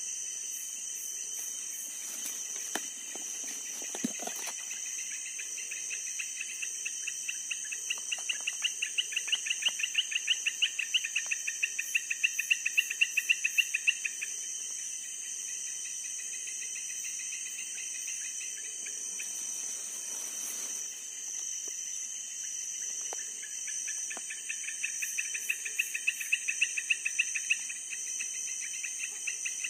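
Night chorus of insects: a steady high-pitched drone with a louder, rapidly pulsed chirping that comes and goes in bouts. There are a few faint rustles and clicks of handling early on.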